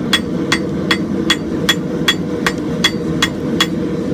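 Hand hammer striking white-hot steel on an anvil in a steady rhythm of about ten blows, two to three a second, each with a short metallic ring. This is forge-welding the leaf-spring steel blade into the mild-steel axe eye. A steady low rumble runs underneath.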